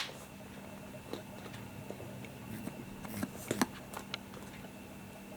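Faint scattered soft clicks and taps from a pet Holland Lop rabbit, a few slightly louder ones around the middle, over a steady low hum.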